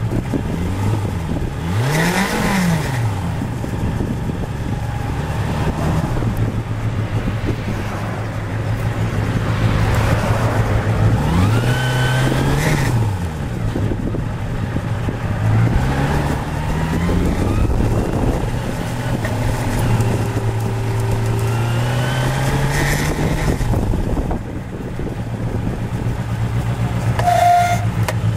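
Kawasaki Balius 250cc inline-four motorcycle engine under way, its pitch rising and falling several times as it accelerates and shifts gears. The owner suspects an abnormal buzzing rattle, a 'gwaa' like a frog or duck, from the engine or handlebar area.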